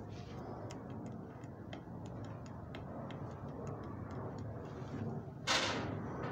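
Faint, regular ticking, about three ticks a second, over a steady low hum, with a short rustling swish about five and a half seconds in.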